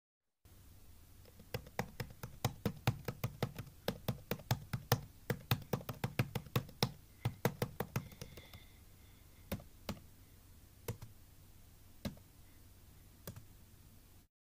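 Typing on a tablet's on-screen keyboard: a quick run of taps, several a second, for about five seconds, then a handful of single taps about a second apart, over a faint low hum.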